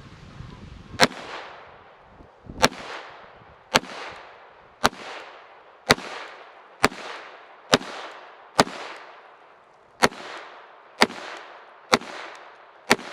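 Taurus TX22 .22 LR semi-automatic pistol fired twelve times in slow, aimed succession, about one shot a second, each crack followed by a short fading echo.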